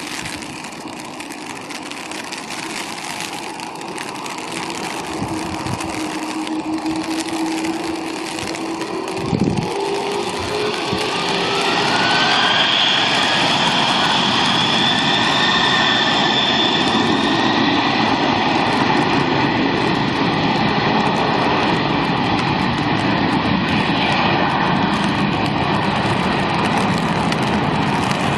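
Jet airliner engines: a whine that rises in pitch over the first ten seconds or so, getting louder, then a loud, steady jet noise with a high whine from about twelve seconds in. There is a low thump about nine seconds in.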